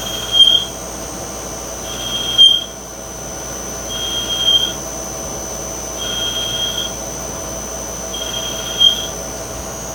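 CNC lathe's cutting tool squealing against the spinning bar stock as it cuts dry, without coolant: a high squeal that comes back about every two seconds, five times, some much louder than others, over a steady high whine from the running machine.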